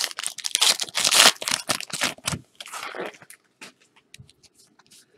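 Trading card pack wrappers and cards being handled, crinkling and rustling in quick strokes. It is dense for the first two and a half seconds, then thins to scattered soft rustles and clicks.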